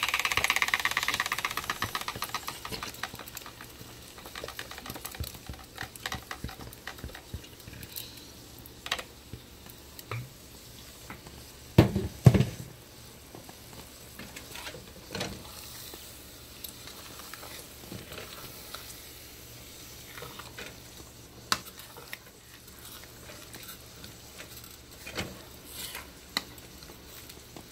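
Ground pumpkin seeds (pepitas) frying in oil in a pan, sizzling loudest in the first couple of seconds, with a spoon stirring and scraping through the mixture as blended red bell pepper goes in. A few loud knocks come about twelve seconds in.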